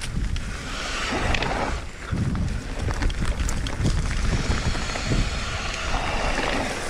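Mountain bike being ridden over a rough trail: wind buffeting the camera microphone as a low rumble, with scattered knocks and rattles from the bike.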